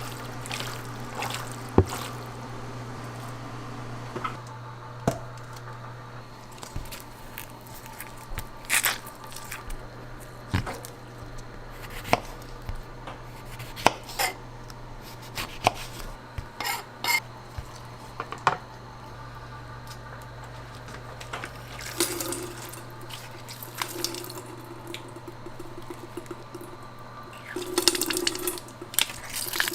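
Food-prep clatter: utensils and dishes clinking and knocking at irregular intervals over a steady low hum. Near the end come some noisier stretches that sound like liquid or wet handling.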